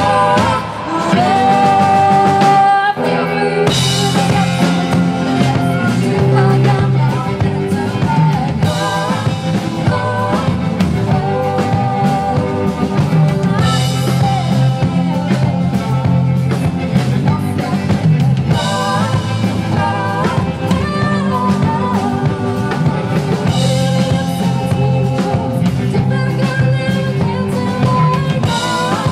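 Live band playing a country-pop song: a woman sings lead into a handheld microphone, with a second woman singing backing vocals, over electric guitar, bass guitar and a drum kit keeping a steady beat.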